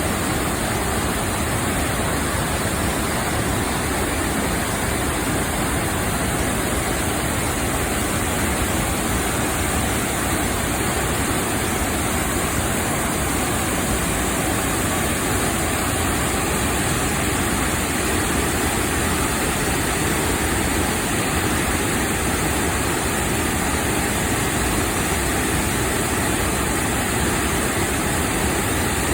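Steady roar of a multi-tiered waterfall's water, unbroken and loud throughout.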